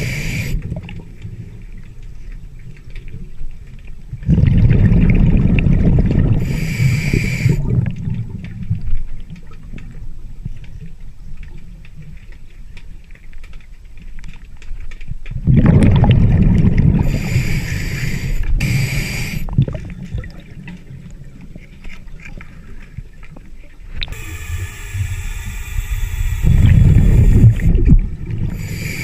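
Scuba diver breathing through a regulator underwater: three long, loud gurgling rushes of exhaled bubbles, roughly eleven seconds apart, with shorter hissing inhalations between them.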